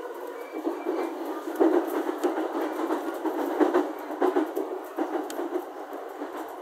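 JR E231-series commuter train heard from inside the car while running, its wheels clacking irregularly over the rails. The loudest clacks come about a second and a half and three and a half seconds in.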